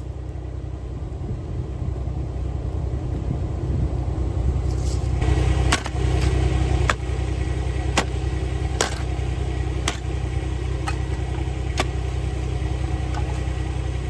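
Clamshell post-hole digger jabbed into a rocky hole about once a second from about five seconds in, each stroke a sharp clink of steel on rock. Under it, a mini skid steer's engine idles steadily.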